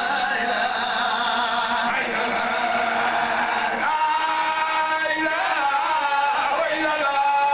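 A man chanting solo into a microphone over a sound system, an Islamic devotional chant sung in long held notes with wavering, ornamented bends.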